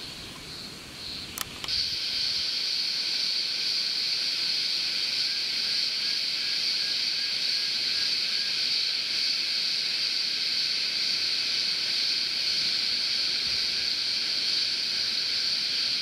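A sharp click about a second and a half in, then a steady, high-pitched droning chorus of cicadas that holds unchanged.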